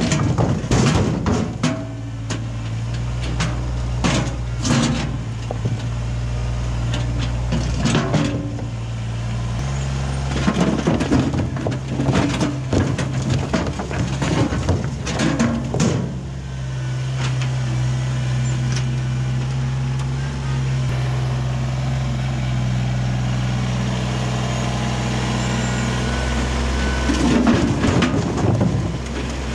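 Kubota BX23S compact tractor's three-cylinder diesel engine running steadily, its pitch stepping up and down a few times as the front loader works. Over it come clusters of clattering knocks as the loader dumps large rocks into a dump trailer, near the start, mid-way and again near the end.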